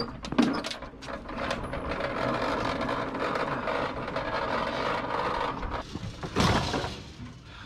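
A motor running steadily for about five seconds, after a few sharp clicks at the start. There is a loud sudden noise about six and a half seconds in, and the sound fades near the end.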